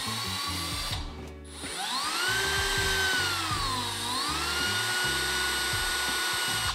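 Power drill boring a pilot hole into the wall. The motor whine spins up briefly and stops, then spins up again and runs steadily for about five seconds. It dips in pitch once about four seconds in and recovers.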